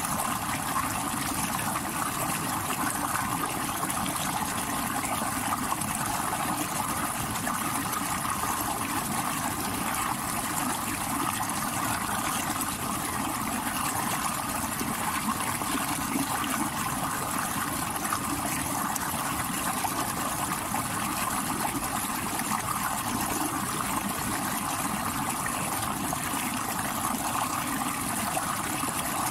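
Stream water rushing over rocks: a steady, unbroken rush with no pauses or changes.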